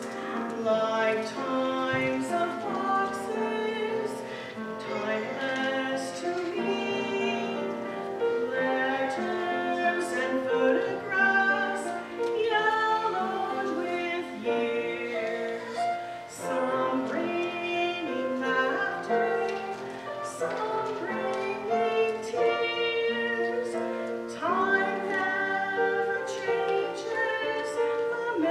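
Women's voices singing a song, the notes held and gliding from one pitch to the next.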